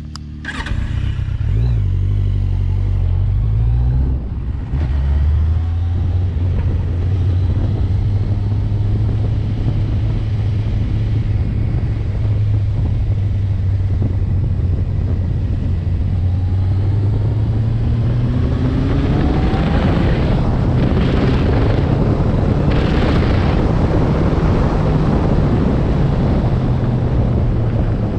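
Road vehicle engine running under way. Its pitch drops about five seconds in, as at a gear change, then climbs steadily through the second half as it accelerates, with a rushing noise swelling in around twenty seconds in.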